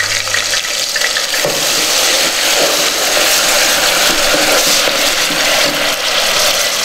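Grated onion paste sizzling steadily in hot oil in an aluminium pot as it is stirred.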